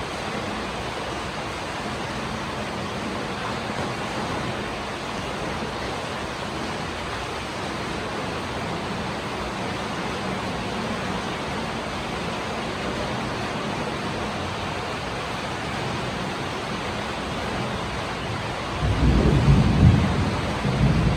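Steady heavy rain falling. Near the end, a low rumble of thunder rolls in and is the loudest thing.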